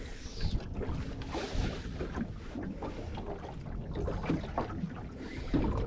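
Small waves slapping and lapping against the hull of an aluminium boat, with wind buffeting the microphone.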